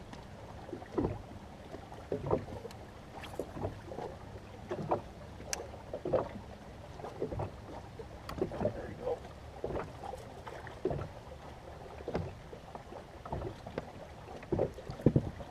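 Water lapping against the hull of a bass boat, with scattered small knocks and taps on the deck while an angler casts and reels in.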